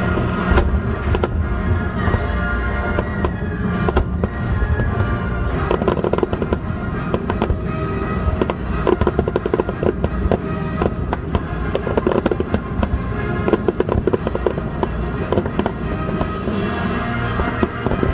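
Fireworks going off in quick succession: a dense run of bangs and crackling bursts, thickest in the middle, with music playing underneath.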